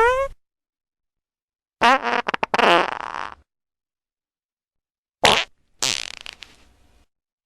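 Fart sound effects played one after another with dead silence between them. A rising-pitched one ends at the start, a sputtering one comes about two seconds in, and near the end a short burst is followed by a longer one that trails off.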